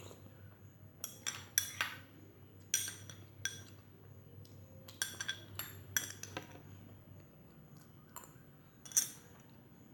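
Cutlery clinking against dishes while eating, in irregular clusters of sharp, ringing clinks, the loudest near the end.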